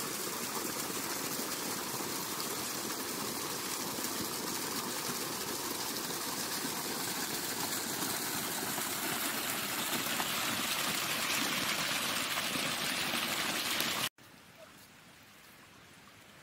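Water running along a small garden irrigation channel and spreading over the soil, a steady rush that grows louder about halfway through. Near the end it cuts off abruptly, leaving a much quieter flow.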